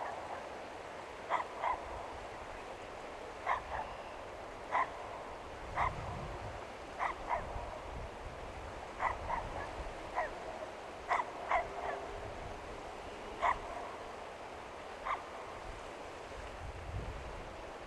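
Short croaking animal calls, about twenty of them at irregular intervals, some in quick pairs, over a steady outdoor hiss. A low wind rumble comes in around six seconds in and again near the end.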